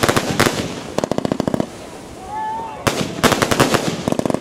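Aerial fireworks bursting overhead in rapid strings of sharp bangs and crackles, three runs in all. There is a short rising-and-falling whistle about two seconds in.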